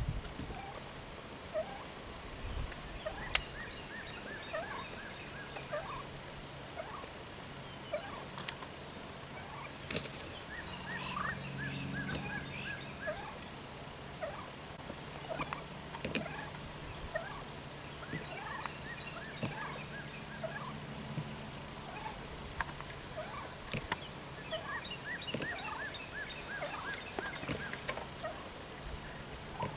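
Wild turkeys in a flock calling: many short notes scattered throughout, with a few sharp clicks and a low steady hum through the middle stretch.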